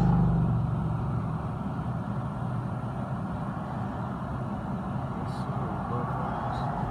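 Car engine and road noise heard from inside the cabin: a low engine drone, loudest at the start, fades within about a second into a steady rumble.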